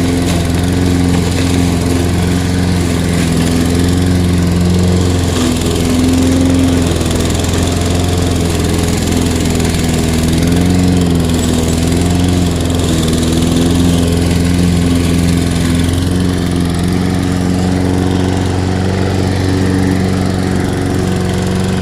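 Toro 21321 mower's Briggs & Stratton 140cc single-cylinder engine running steadily while mowing thick, overgrown grass, its pitch dipping slightly now and then.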